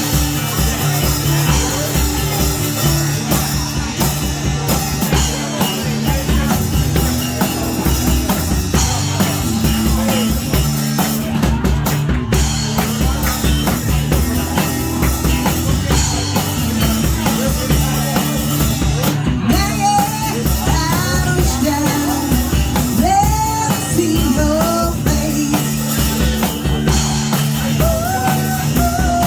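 Rock music with a steady drum beat, bass and sustained chords, and a bending melody line coming in over it for the last third.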